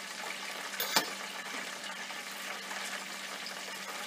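Steady hiss with a low hum underneath, and a single sharp clink of cutlery on a plate about a second in.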